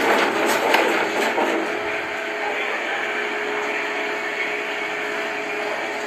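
Consul top-load washing machine spinning its basket during a suspension test. It runs with a steady mechanical hum, and a steady whine comes in about two seconds in.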